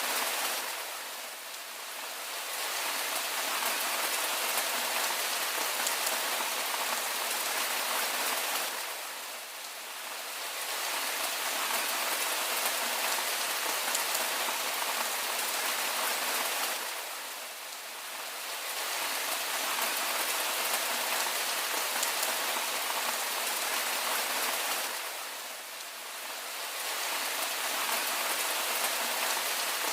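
Steady rain falling, a dense hiss of drops with little low rumble, easing briefly about every eight seconds.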